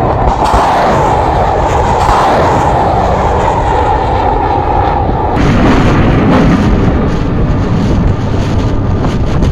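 Rocket motors of surface-to-air missiles roaring as they launch and climb away from a tube launcher. The roar is loud and continuous, and turns deeper and fuller about five seconds in as a further missile leaves the launcher.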